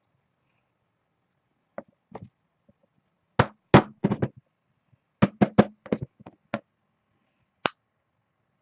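A dozen or so sharp, hard knocks in irregular groups, some in quick pairs and triples, with silent gaps between them.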